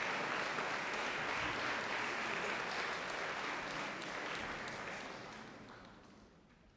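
Concert audience applauding in a hall, the clapping dying away over the last two seconds.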